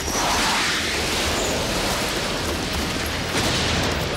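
Animated sound effect of an explosion as the flying-wing aircraft's engines are hit: a sudden loud blast, then steady noise, with a second burst about three and a half seconds in.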